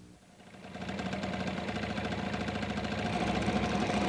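Honda NQ50 scooter's small single-cylinder two-stroke engine starts about half a second in and settles into a steady idle, running for an ignition timing check. The level rises a little near the end.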